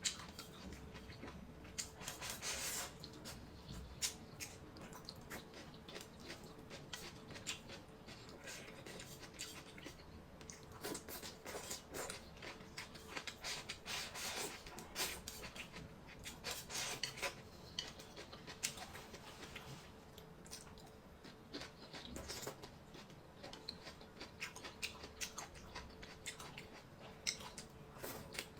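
Eating sounds: utensils clicking and scraping against bowls and plates as food is picked up, in many irregular short clicks and rustling bursts.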